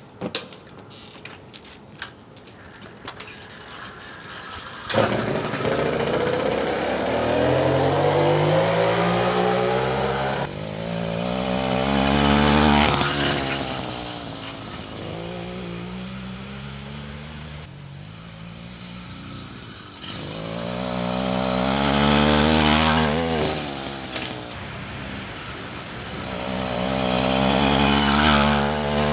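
Small petrol engine on a motorized bicycle: a few light clicks, then the engine starts abruptly about five seconds in and runs with a buzzing note that repeatedly rises and falls in pitch and loudness as it revs and eases off.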